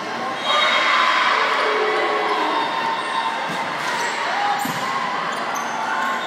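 Volleyball being played in an echoing gym: ball thumps on hands and floor amid a busy din of players' and spectators' voices, which gets louder about half a second in.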